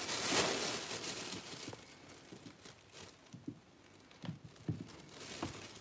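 Thin plastic shopping bags crinkling and rustling for the first couple of seconds, fading out, followed by a few soft taps.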